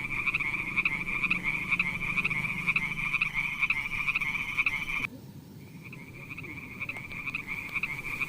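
Frogs calling in a steady chorus of rapid, pulsed croaks. About five seconds in the calling cuts off abruptly, then resumes half a second later, quieter.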